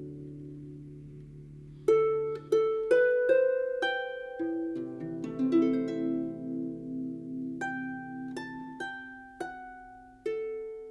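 Background music of plucked harp notes over held chords: a fading chord, then a run of single notes that ring and die away.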